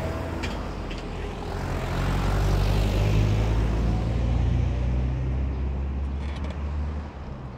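Motor vehicle engine and road noise that swells to a peak about three seconds in, then fades away.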